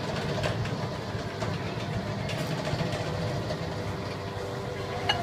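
Steady low mechanical rumble with a faint hum over it, and a brief clink near the end.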